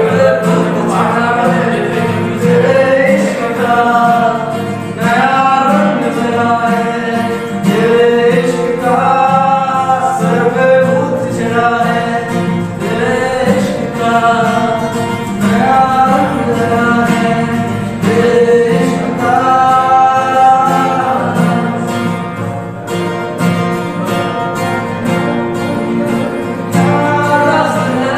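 A man singing a melodic song to his own acoustic guitar accompaniment, the voice rising and falling over steady strummed chords.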